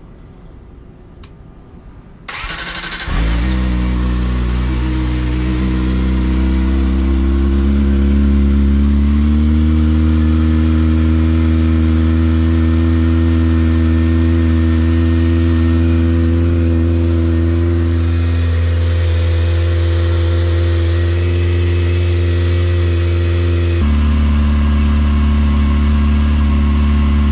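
Kawasaki ZX-25R's 249 cc inline-four with a Yoshimura R77 exhaust cold-started: a brief starter whir about two seconds in, then the engine catches and settles into a steady fast idle. The idle pitch creeps up over the next few seconds and its note shifts near the end.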